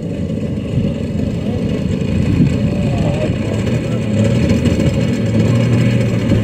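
The 3W-170 twin-cylinder two-stroke gasoline engine of a 50%-scale Piper Cub model running steadily at low throttle as the plane taxis on grass. A steady low hum comes in about two-thirds of the way through.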